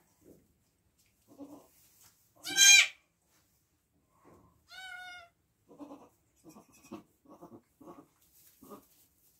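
Nigerian Dwarf goats bleating: one loud high-pitched bleat, then a shorter wavering bleat a couple of seconds later. A run of short, soft low sounds follows, about two a second.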